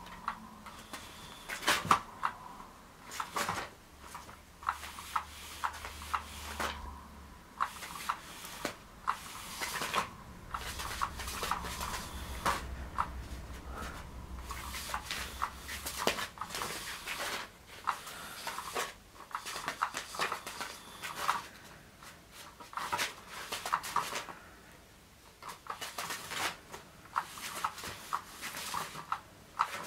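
Rotary cat toy with its wand moving under a nylon fabric cover: irregular rustling and clicking over a faint steady motor whine, with taps as a cat paws at the fabric.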